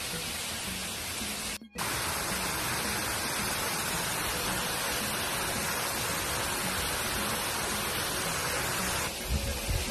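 Steady, even rushing of a small waterfall splashing down over rocks. It breaks off for a moment about two seconds in, and a low, uneven rumble joins it near the end.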